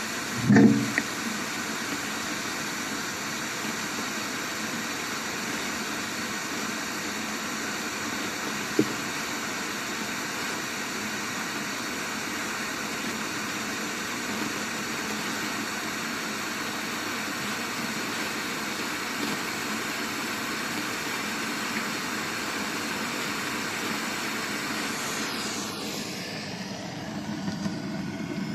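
Steady rushing noise with a faint hum, picked up by a pin microphone lowered 18 m down a borehole casing and played through a loudspeaker. The group presents it as a sound from underground, which the Ministry of National Defense calls wind. There is a thump about half a second in and a brief click later on.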